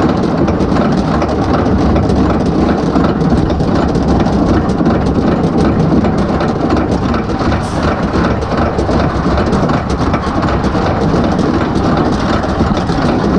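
Arrow suspended roller coaster train running along its steel track, heard from a camera on the car: a loud, steady rumble with a dense rattle of wheels.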